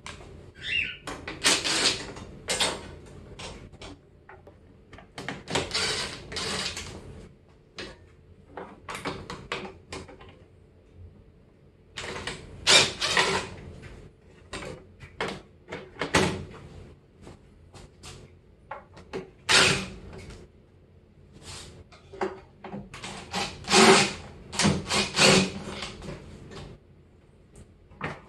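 Bursts of clattering and knocking from the microwave's metal casing and plastic parts as they are worked loose, each about a second long and coming every few seconds.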